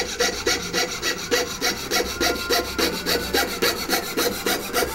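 Hand coping saw with a fine blade sawing a short, straight slot into the edge of a thin wooden board, cutting perpendicular to the board. The strokes are quick and even, about five a second.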